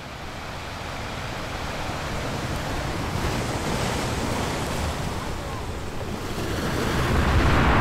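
Wind rushing over the microphone with lapping water beneath, a steady noisy rush that fades in and grows gradually louder.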